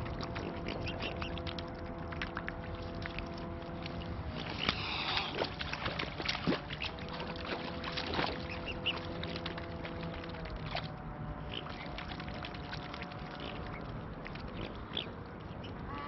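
Mute swans dabbling and feeding in shallow water, giving a run of small splashes and bill clicks, busiest in the middle. Short waterfowl calls come in a few times. A steady low engine-like hum sits underneath and shifts pitch a couple of times.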